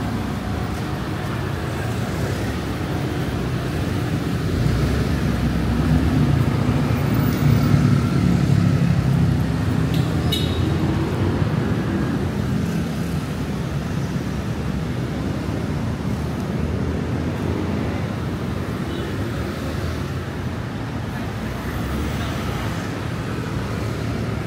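Steady city road traffic: a continuous low rumble of vehicles that swells louder for a few seconds about a quarter of the way in as traffic passes close by.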